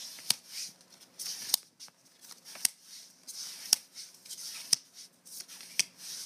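Magic: The Gathering cards being flipped through by hand, one card slid off the stack and tucked behind the others at a time. Each card gives a crisp snap, about once a second, with a soft papery rustle between snaps.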